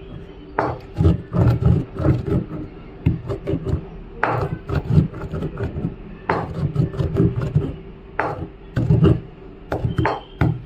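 Pestle pounding hard lumps of musambaram (dried aloe resin) in a mortar: repeated, irregular thuds about two to three a second, with brief pauses, as the resin is crushed to a fine powder.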